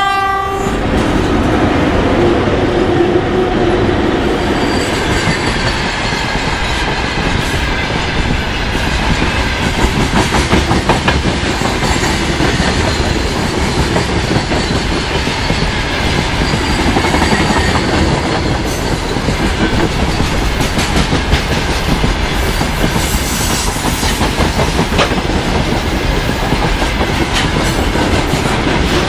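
A VL80S electric locomotive and the long freight train of gondola and hopper wagons behind it passing close by, the wheels clattering over rail joints in a steady rumble.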